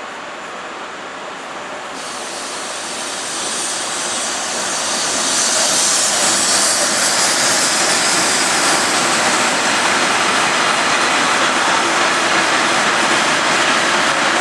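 Vintage electric locomotive and a train of old passenger coaches passing on the track: the steady rumble of wheels on rail grows louder over the first five seconds or so as the train draws near, then holds steady as the coaches go by.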